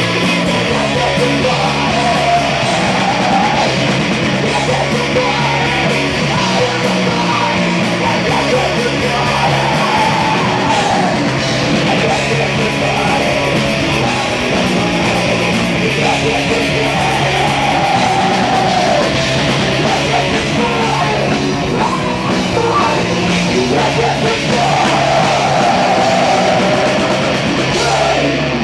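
Live heavy rock band playing loud, with guitar, steady drums and shouted vocals at times.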